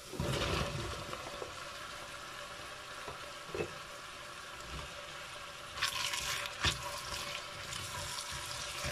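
Diced zucchini tipped off a plastic cutting board into a pot of onion and carrot frying in oil: a clatter as the pieces land, then a steady quiet sizzle. A few knocks and scrapes follow, then stirring with a wooden spatula near the end.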